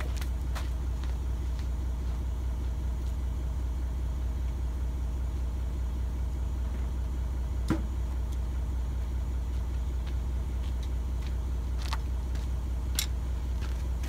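An engine idling with a steady low hum, broken by a few sharp clicks, the sharpest a little before halfway and two more near the end.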